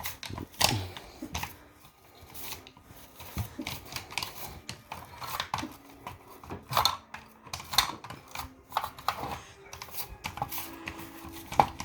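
Irregular small clicks, taps and scraping from handling a pneumatic nail gun and its parts while it is being cleaned.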